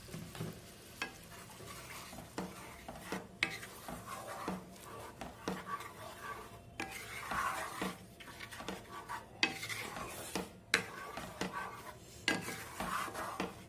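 Wooden spatula stirring a thin spiced gravy in a metal kadai, scraping and knocking against the pan in irregular strokes as warm water is mixed into the fried masala.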